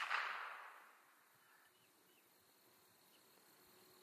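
The echo of a Ruger 10/22 .22 rifle shot dies away within the first second, leaving quiet rural air with a few faint chirps.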